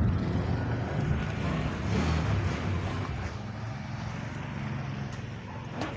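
A motor vehicle's engine drone passing nearby, loudest at first and fading away over a few seconds, with a single sharp click just before the end.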